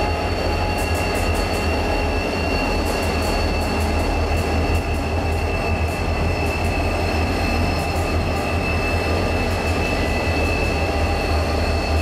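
C class diesel-electric locomotives moving under power: a deep, steady engine drone with a high, steady whine over it. Sharp clicks of wheels over the rail come and go throughout.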